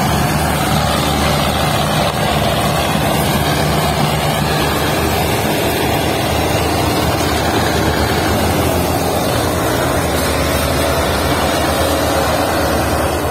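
Belarus tractor's diesel engine running steadily while it pulls a trolley heavily loaded with sugarcane.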